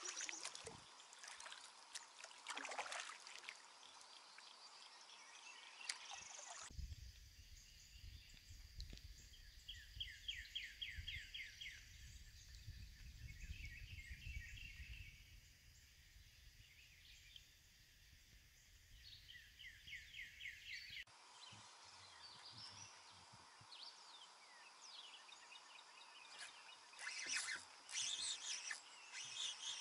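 Faint riverside outdoor ambience of birds chirping and trilling, with rapid repeated trills in the middle. A low rumble runs under the middle stretch, and the background changes abruptly twice where clips are cut together.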